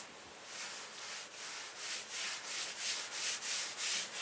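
Paper towel rubbing wood stain into the surface of an old wooden chest in quick back-and-forth strokes, about three a second, after a short pause at the start.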